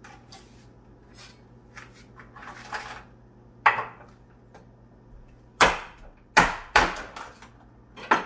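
Knife chopping through blue crab shells to halve the crabs: a few soft taps, then a sharp chop almost four seconds in, three more in quick succession a little past halfway, and one more near the end.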